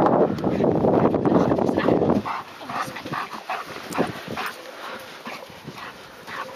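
A dog growling in a tug-of-war over a rope toy, loud for about the first two seconds, then breaking off abruptly into quieter, quick short sounds about four a second.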